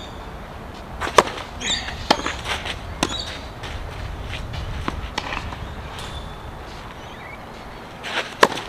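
Tennis ball knocks: a racket striking the ball and balls bouncing on the court, a few separate sharp hits spaced out, the loudest about a second in and a serve struck near the end, over a low rumble of wind on the microphone.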